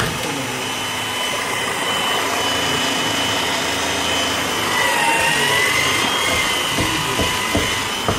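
Bosch bench drill press running with a steady motor whine; about five seconds in the whine dips in pitch and recovers as the bit cuts through the metal profile. A few sharp knocks follow near the end as the profile is shifted along the jig.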